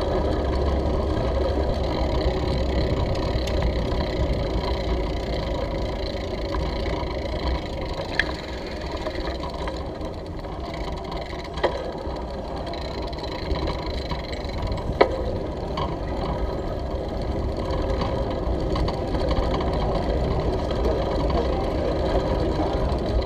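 Bicycle rolling over brick paving, heard through a handlebar mount: a steady rumbling rattle from the road vibration, with three sharp clicks midway.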